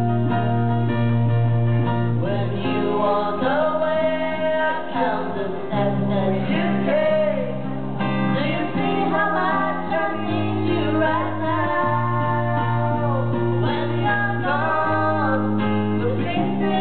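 Live performance: an electric bass holding low notes that change every second or two and an acoustic guitar accompanying a woman and a man singing the melody together.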